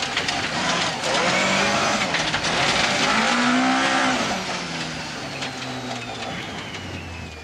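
Volvo 240 rally car heard from inside the cabin, its engine running over gravel with a hiss of tyres and stones. About four seconds in it eases off and gets quieter, and the engine note drops low as the car slows.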